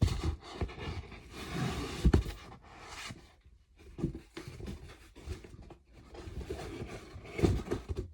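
Handling noise from unpacking a storage box: rustling packaging with irregular knocks and taps, loudest about two seconds in and again near the end.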